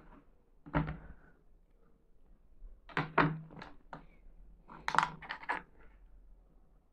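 Kitchen knife knocking on a plastic cutting board and being laid down, with small clatters of cut melon pieces being moved on the board. There is a single knock about a second in, a quick cluster of knocks around three seconds in, and another cluster around five seconds in.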